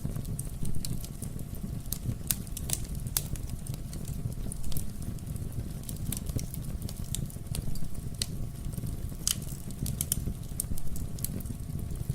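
Wood fire in a fireplace crackling, with irregular sharp pops and snaps over a steady low rumble of the burning logs.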